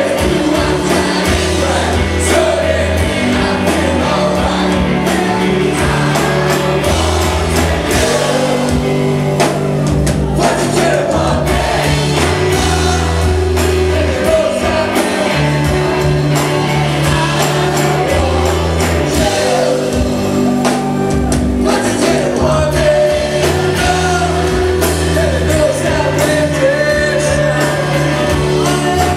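Live rock band playing a song: male lead vocals over electric guitars, bass guitar and drums.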